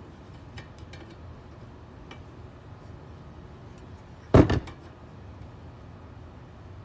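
A single sharp metallic clank, a quick double strike about four seconds in, as a crescent wrench knocks against the spokes and rim of a motorcycle wheel while a seized spoke nipple is worked back and forth. Otherwise only faint small clicks of metal handling.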